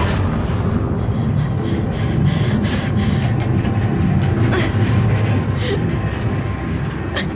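Film sound design: a loud, dense low rumble that sets in with a sudden hit, with sharp knocks about four and a half seconds in and again near the end.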